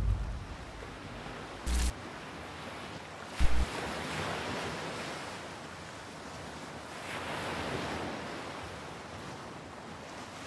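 Wind and waves at sea aboard a racing sailing yacht: a steady hiss of water and wind that swells a little midway, with two short knocks about two and three and a half seconds in.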